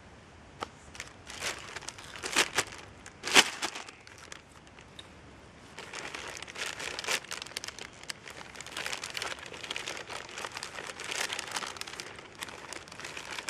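A parcel's packaging being torn open and handled. A few sharp tearing crackles come in the first few seconds, the loudest about three and a half seconds in, then steady crinkling of plastic as the contents are pulled out.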